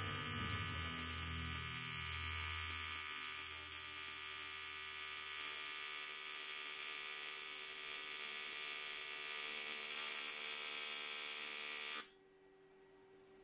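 TIG welding arc buzzing steadily while a seam is welded on a fabricated intake manifold, cutting off abruptly about twelve seconds in when the arc is broken.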